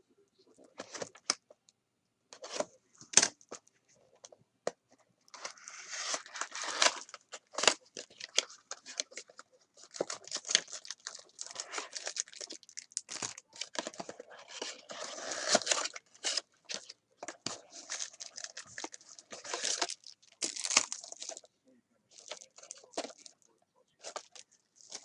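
Trading card pack wrappers being torn open and crinkled, with cards being handled, in irregular runs of crackling rustles and short tearing sounds.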